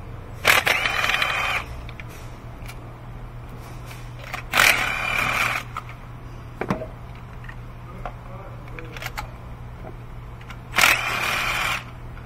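A cordless power tool's motor whines in three bursts of about a second each as it spins spark plugs loose through a 5/8-inch spark plug socket on an extension. There is a single sharp metallic click between the second and third bursts.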